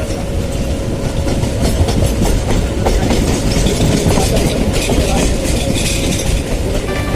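Passenger train running along the track: a steady rumble with the wheels clattering over rail joints.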